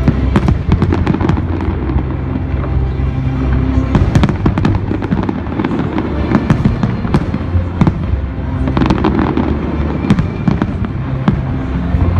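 Fireworks display: a dense, continuous string of bangs and crackles, with music with held bass notes playing underneath.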